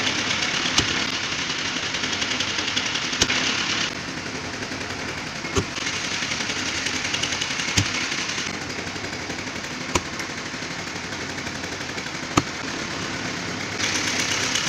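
Pile-driving hammer striking a precast concrete pile six times, one sharp blow about every two and a half seconds, over the steady running of the piling machine's engine.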